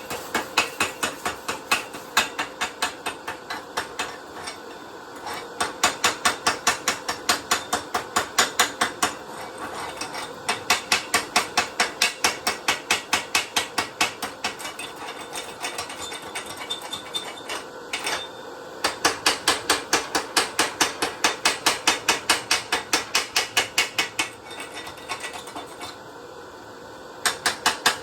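Rapid metallic tapping on steel, about five or six strikes a second in runs of several seconds with short pauses, like a chipping hammer knocking slag off welds, over a steady shop hum.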